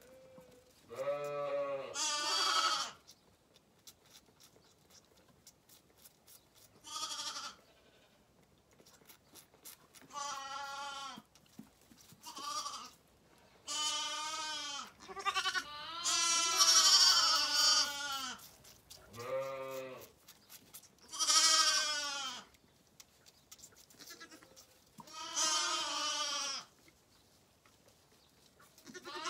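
Zwartbles lambs bleating, about ten separate calls of a second or so each, two of them calling over each other around the middle.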